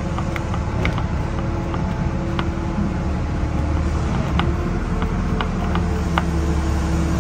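Mitsubishi GM180 6 hp single-cylinder petrol engine idling steadily. A few scattered light clicks come from a nut on its housing being undone by hand.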